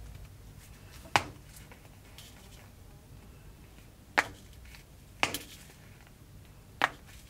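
A foam squishy toy shaped like a seaweed-wrapped senbei rice cracker being squeezed and bent in the hands, with a faint rustle of foam and fingers. The rustle is broken by four short, sharp clicks: one about a second in, two around four to five seconds, and one near the end.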